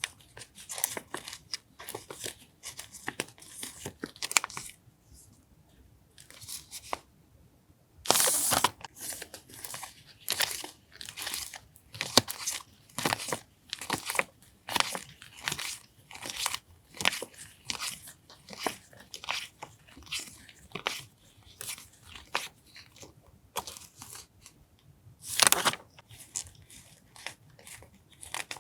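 Paper stationery and its packaging being handled and unwrapped by hand: a run of short crinkles and rustles, with two longer, louder rustles, one about eight seconds in and one near the end.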